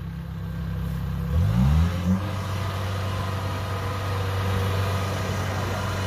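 Kubota DC-60 combine harvester's diesel engine running. It revs up about a second and a half in, then holds steady at the higher speed.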